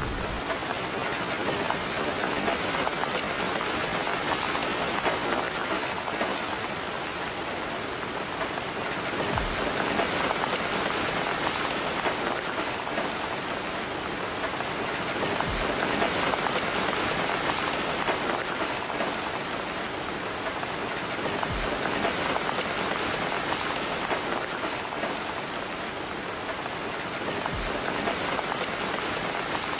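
Steady heavy rain falling on surfaces, a dense even patter that swells and eases slowly, with a few brief low thumps.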